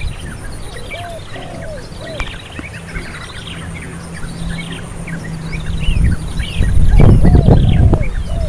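Many birds chirping and calling together, with short arched calls lower down. About six seconds in, a loud low rumbling noise comes in and drowns out the low end.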